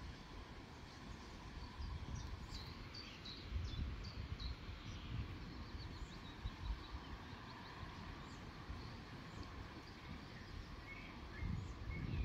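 Small birds chirping, with short high calls scattered over a low, fluctuating rumble that grows louder near the end.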